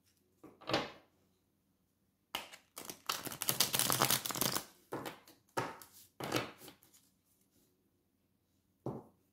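A deck of tarot cards being shuffled by hand: a short rustle near the start, a dense run of shuffling from about two seconds in, then a few shorter shuffles.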